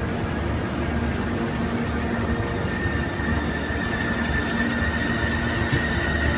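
Steady rumble of a passenger train standing at the platform with its doors open, joined about three seconds in by a high steady whine.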